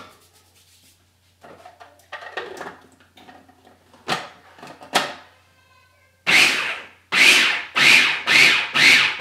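Food processor pulsed in about five short, loud bursts in the last three seconds, chopping and mixing a seitan dough of vital wheat gluten and liquid. Before that, light knocks and clatter of kitchenware.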